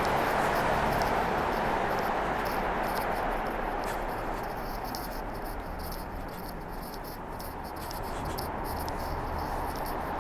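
A person breathing heavily close to the microphone, a continuous airy rush that eases a little past the middle and builds again, with faint scattered ticks.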